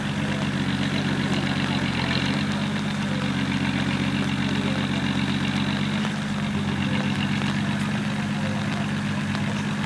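Off-road 4x4's engine running steadily at low revs, near idle. Its pitch shifts slightly about two seconds in and again about six seconds in.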